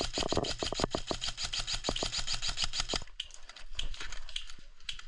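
Airsoft rifle firing a long rapid burst of evenly spaced sharp clicks that stops about three seconds in, followed by scattered knocks and rustling.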